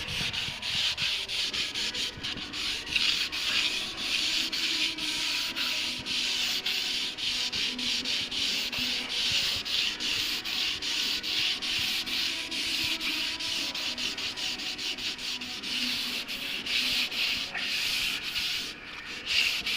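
Hand block sanding: sandpaper on a Johnny BLOX sanding block rubbed back and forth over cured paint in quick, steady strokes, levelling out paint runs.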